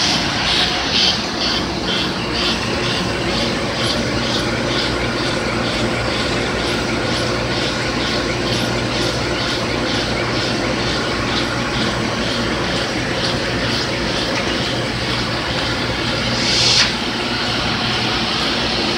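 Bobst Mistral 110 folder-gluer running at production speed: a steady mechanical hum of belts and rollers with a rapid, regular ticking as the cartons pass. A short burst of hiss comes near the end.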